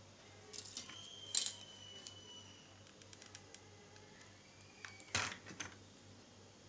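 Small handling noises of thin plastic and paper on a tabletop: soft rustles and clicks, with a sharp crinkle about a second and a half in and a louder crackling a little after five seconds.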